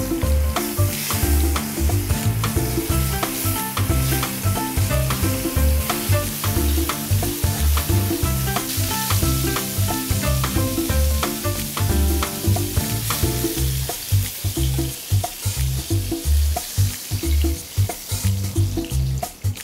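Mackerel fillets sizzling and frying in hot oil in a pan, a steady hiss that thins out in the last few seconds. Background music with a steady beat plays throughout.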